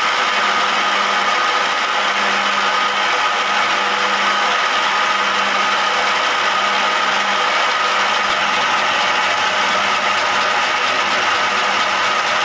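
Milling machine spindle running steadily at 250 rpm counterclockwise, with a homemade flycutter holding a right-hand carbide lathe tool; a steady motor and gear whine. From about eight seconds in, light ticks come about four times a second as the single cutter begins to take a cut in scrap steel.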